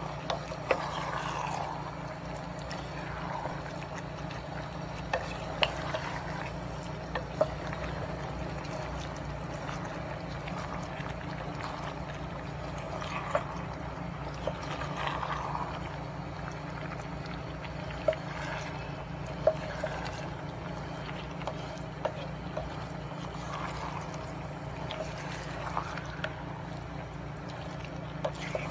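Beef-skin and petai stir-fry sauce bubbling in a pan, with soft gurgles and scattered sharp pops, over a steady low hum.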